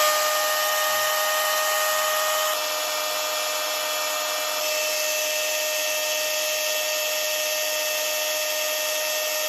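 Milwaukee M18 FUEL brushless battery chainsaw running at full speed with no load, a steady high whine. It is the 30-second run-in before first use that carries the freshly filled bar-and-chain oil onto the chain.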